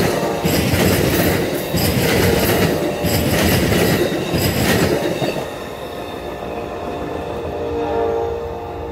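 Amtrak passenger cars passing close at speed, the wheels clattering and clicking over the rail joints. The noise drops off as the last car goes by about five seconds in, leaving a fainter, steady tone from the receding train.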